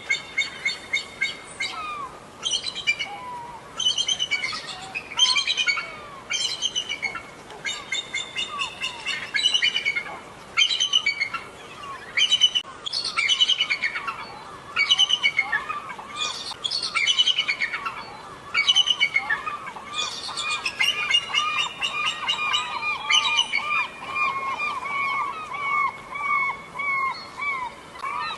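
Eagle calling in repeated bursts of rapid, high chattering notes, about one burst a second; from about two-thirds of the way in, a steady stream of short lower chirps runs beneath them.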